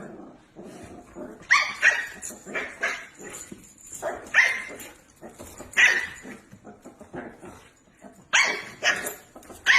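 A dog barking in short, sharp, high-pitched barks, spaced out at first and then several in quick succession near the end.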